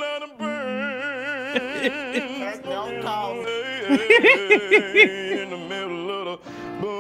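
A man singing without clear words in long notes with a wide, wavering vibrato, accompanied by electronic keyboard chords. About four seconds in, he breaks into a quick run of short, separate notes.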